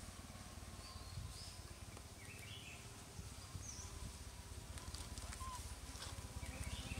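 Faint outdoor ambience: a steady low rumble with a few short, high chirps scattered through it.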